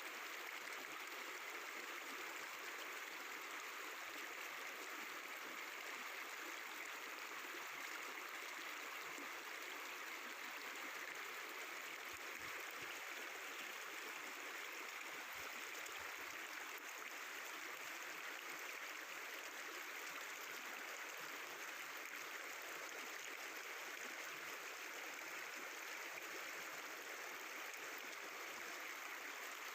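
Mountain river water flowing and babbling over rocks, a steady rushing murmur with no breaks.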